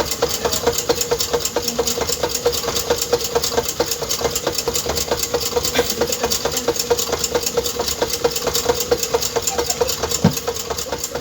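A small motor running steadily, with a steady hum and a fast, even ticking.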